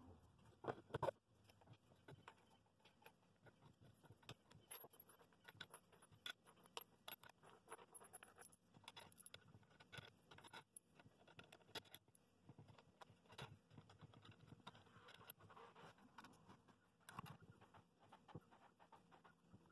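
Faint, irregular clicking and jingling of metal wing nuts and washers being handled and spun onto the threaded steel rods of a plywood glue-up press, with a couple of louder knocks about a second in.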